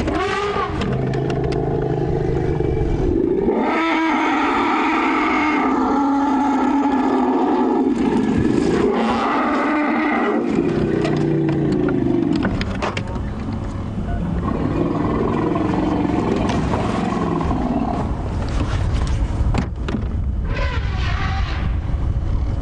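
African elephants of a breeding herd calling loudly in agitation at African wild dogs: several long, wavering trumpet calls in a row, the longest in the first half. Under them runs the low, steady sound of a safari vehicle's engine idling.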